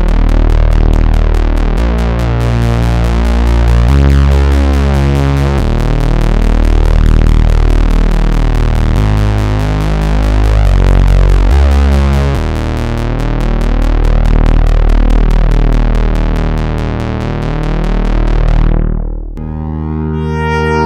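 Nord Lead A1 virtual analog synthesizer playing the "Prophet Bass" patch: deep bass notes changing every second or two under a fast pulsing rhythm, with the filter sweeping open and closed. Near the end the filter closes down and the next patch starts as a held chord.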